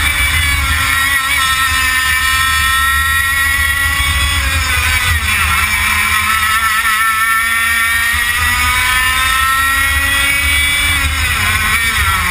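100cc two-stroke kart engine at racing revs, its pitch climbing steadily along the straights and dropping sharply about five seconds in and again near the end as the driver lifts off for corners. A strong low rumble runs underneath.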